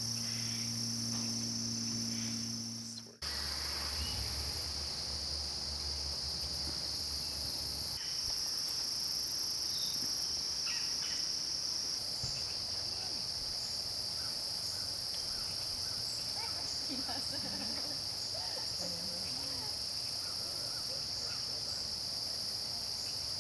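Steady chorus of crickets, a continuous high trill, with a few faint bird chirps. The chorus drops out for an instant about three seconds in, and a low steady hum sits under it for the first several seconds.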